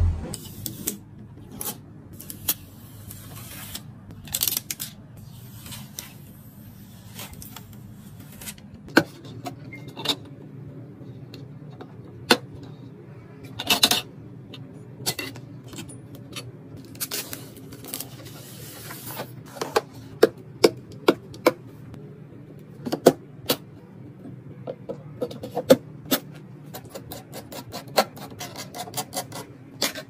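Close handling sounds of a motherboard and its metal heatsink covers: scattered clicks, taps and short rustles, with a quick run of small clicks near the end as a screwdriver works at the M.2 heatsink.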